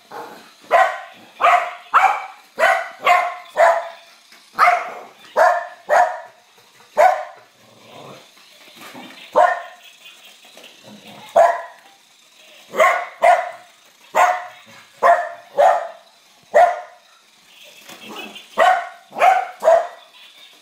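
Dog barking repeatedly, sharp single barks about two a second in runs, with short breaks between the runs.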